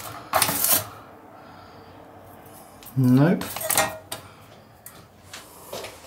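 Handling noise: a brief burst of stiff old paper rustling against a metal cabinet top, then a few light metallic clinks and clicks.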